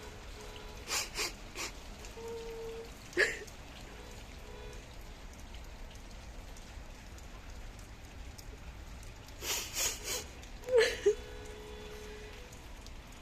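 Steady rain falling, with a few short sharp taps and brief faint thin whines.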